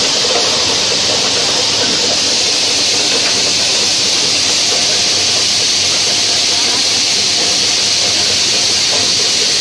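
Mini dal mill machine running steadily while it splits and dehusks pulses: an even, loud hiss with a faint steady hum underneath.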